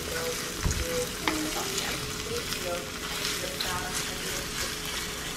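Sliced red onions sizzling in oil in a pan over a gas flame as they caramelize, stirred with a wooden spoon that scrapes and taps against the pan. There is a low knock of the spoon against the pan about a second in.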